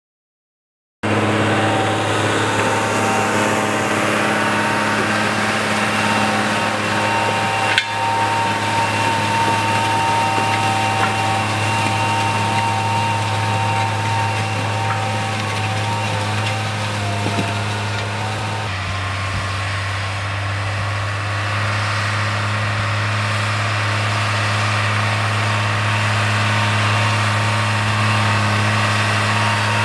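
Tractor diesel engine running steadily while pulling a disc ridger through soil, starting about a second in; the engine note shifts a little over halfway through, with a single sharp click before that.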